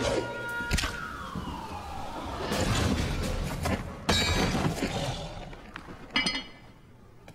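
Cartoon sound effects: a falling whistle about a second in, then a noisy crash and clatter, with a sharp hit about four seconds in and another near the end.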